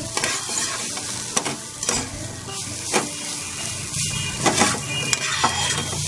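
Metal spatula stirring and scraping chopped onion, carrot and capsicum frying in oil in a frying pan, with a steady sizzle and irregular scraping strokes.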